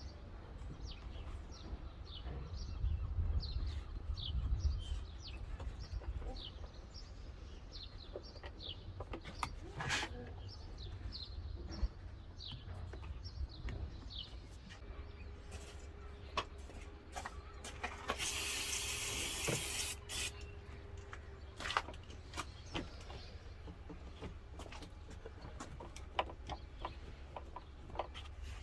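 Birds chirping in short, quick, repeated calls through the first half, over a steady low rumble, with scattered clicks and knocks and a loud hiss lasting about two seconds about two-thirds of the way in.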